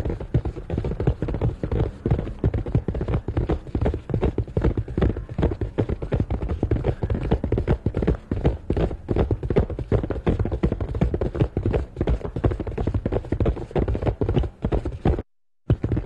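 Horse galloping: a fast, continuous run of heavy hoofbeats. It breaks off into silence for about half a second near the end, then resumes.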